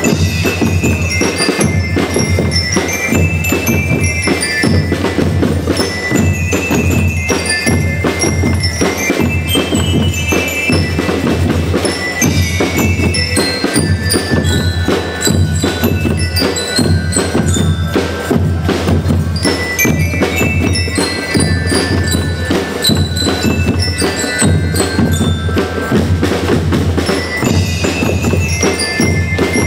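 A school rhythm band playing: bell lyres ring out a melody in short phrases of quick high notes over steady snare drumming.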